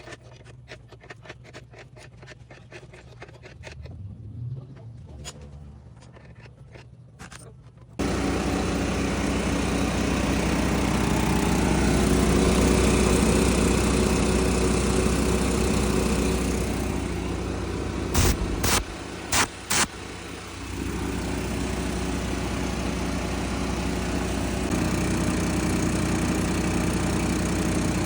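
Light clicks and knocks, then an engine starts running suddenly about eight seconds in and keeps running steadily and loudly, with a few short sharp bursts of noise a little past the middle.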